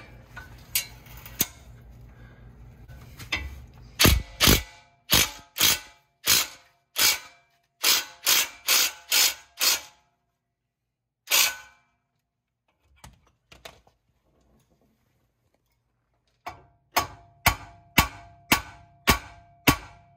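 Sharp metal hammer blows on the steering knuckle and ball joint separator, knocking the lower ball joint loose while the separator holds it under pressure. The blows come about two a second: a run of about a dozen, a single blow, a pause, then another run of about eight near the end.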